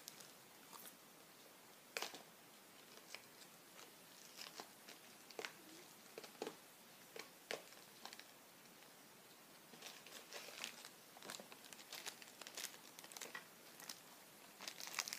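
Faint, scattered crinkling and clicking from a foil snack bag being snipped open with scissors and pulled apart by hand, with a sharper click about two seconds in.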